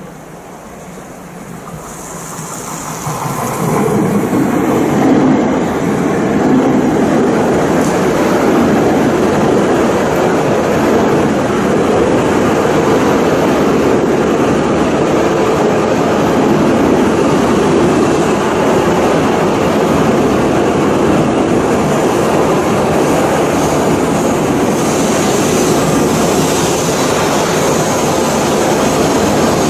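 Hokkaido Shinkansen train running on the line. The rail noise builds over the first few seconds, then holds as a loud, steady rush.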